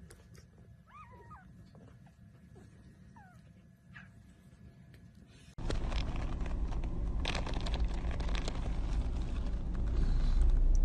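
A dog whimpering softly: a few short, high whines that bend up and down. About halfway through, a sudden cut to a much louder low rumbling noise with scattered knocks.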